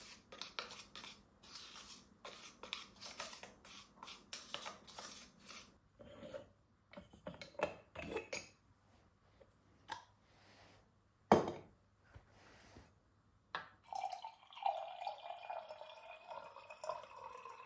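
Freshly ground coffee tipped and tapped from a grinder's lid through a funnel into a ceramic jar, a dense patter of rattles and scrapes, then a single sharp knock about eleven seconds in. Near the end, water is poured from a kettle into a moka pot's metal base, and its tone rises as the base fills.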